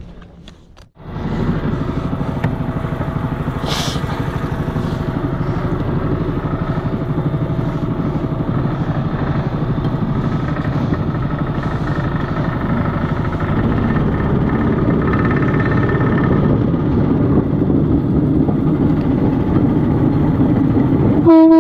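Small petrol engine of a motorized railcart starting about a second in and running steadily. Near the end a horn sounds in short toots, louder than the engine.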